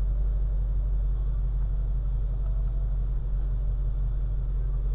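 Shelby GT350's 5.2-litre flat-plane-crank V8 idling steadily, a deep, even rumble with no revving.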